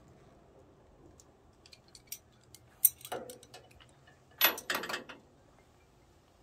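Scattered sharp metal clicks and clinks of hand wrenches being handled and set against the bandsaw mill's steel frame, with the loudest run of clinks about four and a half seconds in.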